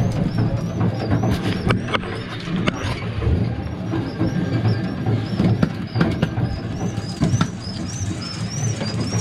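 Boat engine running with a steady low hum, overlaid by irregular knocks and clicks as a fish and a metal hook remover are handled against a plastic bait-board lid. A faint high chirp repeats about twice a second throughout.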